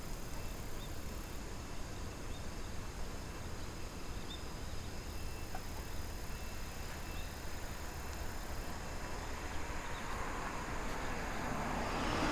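Rural outdoor ambience: faint steady insect chirring over a low background rumble. A broad rushing noise swells over the last two seconds.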